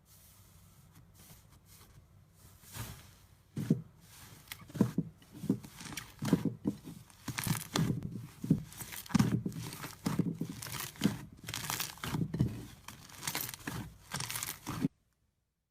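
Slime being squeezed and poked by hand, making a run of irregular crackling, popping squishes that start a couple of seconds in and stop abruptly near the end.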